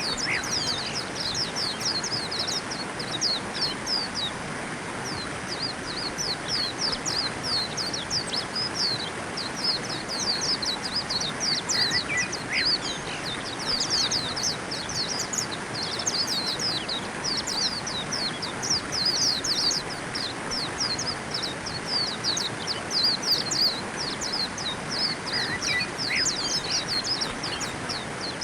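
A flock of white-eyes twittering: quick, thin, high-pitched notes in near-continuous runs, over a steady background hiss.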